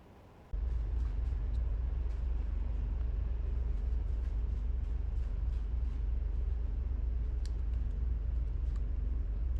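A steady low rumble that starts abruptly about half a second in and holds evenly, with a few faint light ticks over it.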